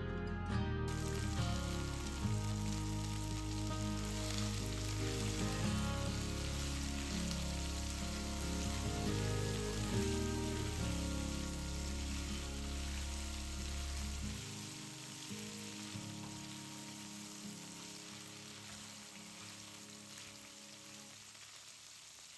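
Food sizzling as it fries in hot oil in a pan. Background music runs alongside it, with its bass dropping out about two-thirds of the way in, and the sound then slowly fades.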